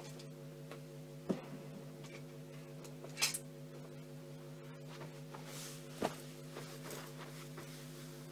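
Steady electrical hum from the amplified guitar pickup rig left idle between playing, with three faint knocks spread through it.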